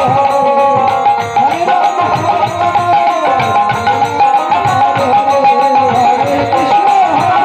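Bengali harinam kirtan: khol drums beating a steady rhythm under held harmonium tones, with a singing voice.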